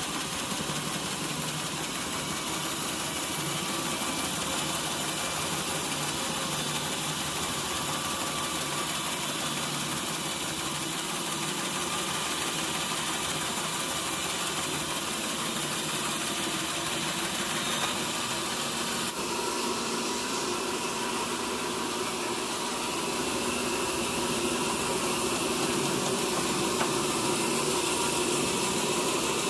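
Sawmill machinery running steadily, with a change in its sound a little past the middle.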